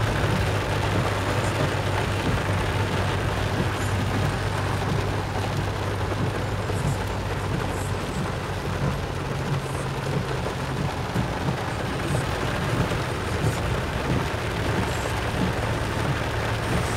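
Renault car driving slowly on a wet dirt road in the rain, heard from inside the cabin: a steady low engine hum under a constant hiss of rain and wet tyres, with a few faint ticks.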